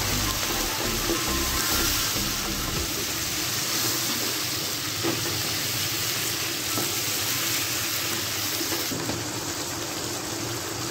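Chicken pieces sizzling steadily in hot oil in a wok while being turned with a wooden spatula, as the spices are fried in.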